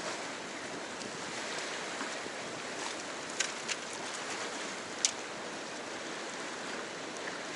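Steady rush of flowing river water, with a few short sharp clicks around the middle.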